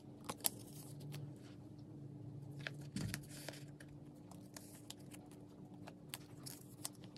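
Faint rustling and scattered light clicks as photocards are slid into the pockets of plastic binder pages, the plastic sleeves crinkling under the fingers.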